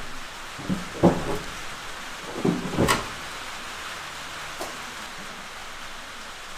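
Steady hiss of light rain, with a few sharp knocks and clunks: two about a second in and two more just before three seconds.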